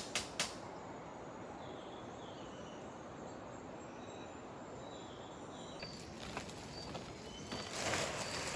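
Outdoor forest ambience: a steady hiss of background noise with a few faint bird chirps. Two sharp knocks come right at the start. Near the end a louder rustling noise rises.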